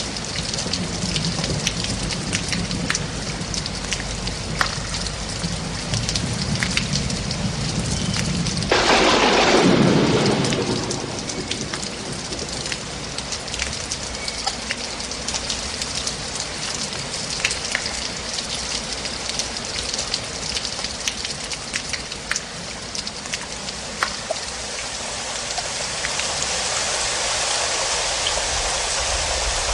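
Steady rain falling with scattered sharp drip ticks. About nine seconds in a loud thunderclap breaks out and rumbles away over a few seconds. The rain grows a little heavier near the end.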